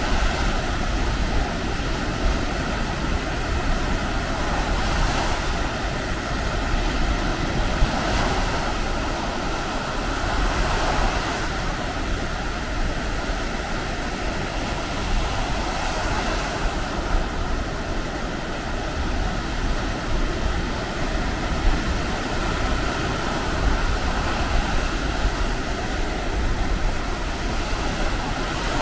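Baltic Sea surf breaking on the beach, a steady rush that swells every few seconds as waves come in, with wind rumbling on the microphone.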